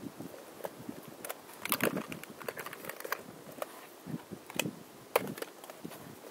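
Small twig fire crackling, with irregular sharp pops and clicks.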